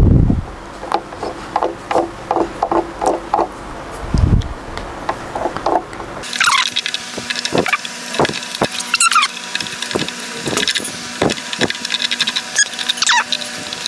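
A silicone pastry brush dabs butter onto a waffle maker's nonstick grid plates: a run of light taps, with two dull thumps in the first half. In the second half come sharper clicks and short high squeaks as the brush scrapes the plates.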